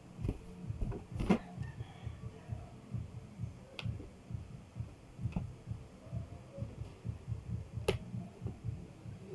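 Low, uneven rubbing and handling noise, with three sharp clicks spread through it and no loud pop.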